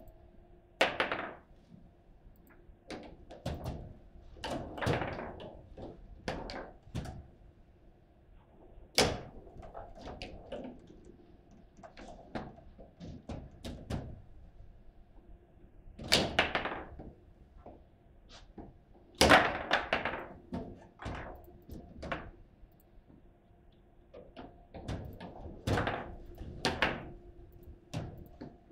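Foosball table: scattered sharp knocks and thuds of the ball and rods striking the table, a few of them much louder than the rest, over a faint steady hum.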